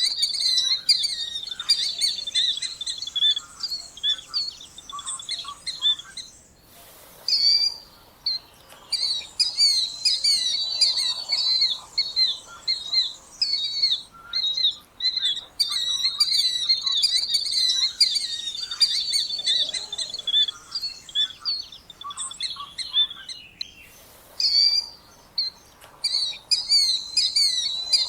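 Killdeer calling: dense runs of short, shrill, rapidly repeated notes, broken twice by brief gaps where the recording cuts.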